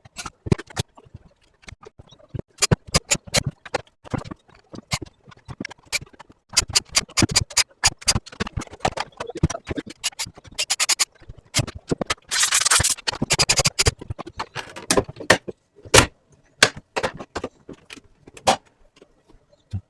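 Irregular clicks, taps and knocks of a robot vacuum cleaner's housing and parts being handled and taken apart by hand, with brief bursts of scraping about halfway through.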